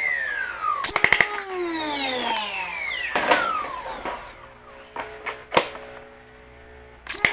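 Brushless flywheel motors (iFlight Xing-E 2208) of a foam-dart blaster whining as they spin down, the pitch falling steadily. About a second in they rev back up for a short burst of darts fired with sharp clicks, then wind down again. After some handling and a few plastic clicks of a magazine being swapped, the flywheels spin up abruptly near the end with a high whine, and firing starts again.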